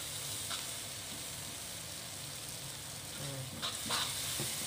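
Chili-paste sauce sizzling in a wok while a metal spatula stirs it, with a few scrapes of the spatula against the wok, most of them near the end.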